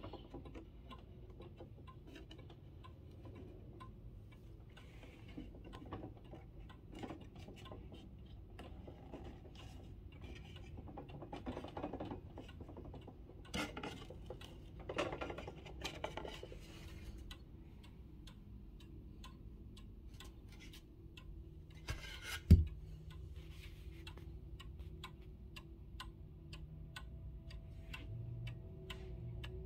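Early-1900s 30-day mantel clock ticking steadily while its wooden case is handled, with rubbing and scraping noises. One sharp knock a little past two-thirds of the way through.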